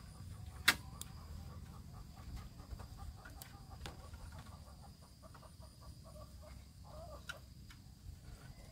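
Chickens clucking softly over a steady high insect trill, with one sharp click less than a second in.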